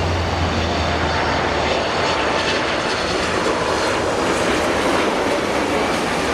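Boeing 737 MAX 8 airliner on landing approach, its CFM LEAP-1B turbofan engines giving a steady, loud rushing jet noise with a faint whine. A low hum underneath fades after about two seconds.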